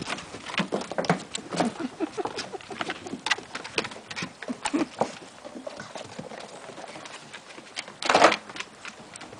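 Airedale terrier puppies and their mother playing on a wooden deck: quick pattering and scrabbling of paws and claws on the boards, many light ticks, with one louder rustling burst about eight seconds in.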